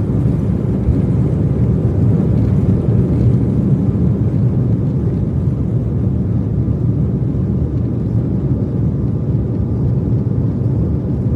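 Jet airliner's engines at takeoff power, heard inside the cabin as a steady low rumble.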